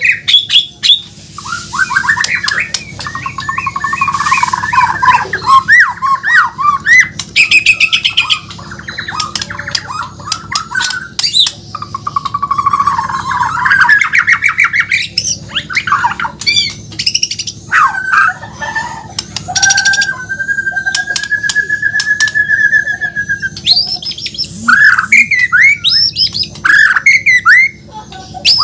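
Murai batu (shama) singing a loud, varied song: rapid warbling runs and trills mixed with sharp clicking and harsh notes, and one long wavering whistle about two-thirds of the way through.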